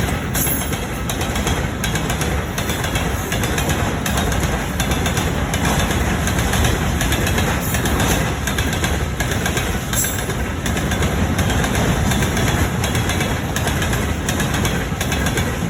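Long train passing close by: a loud, steady rumble of the wagons' wheels on the rails.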